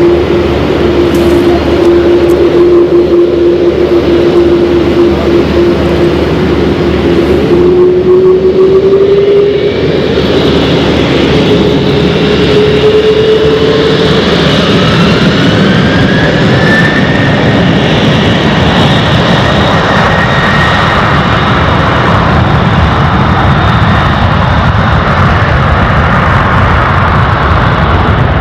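Airbus A330-200 jet engines running as it rolls onto the runway, a steady whine that steps up in pitch after several seconds. About halfway through they spool up to takeoff thrust, a rising whine that gives way to a loud steady roar as the airliner accelerates down the runway.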